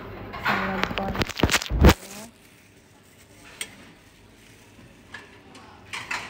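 A voice for about half a second, then a loud low thump about two seconds in, followed by quiet room tone with a few faint clicks.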